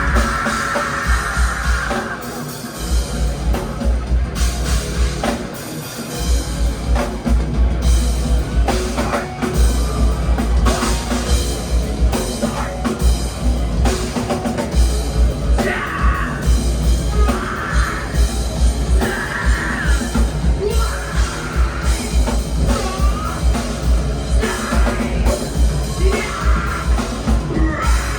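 Rock band playing live, loud, with a drum kit driving a heavy kick drum under guitars. The drums drop out briefly twice in the first few seconds, then come back in.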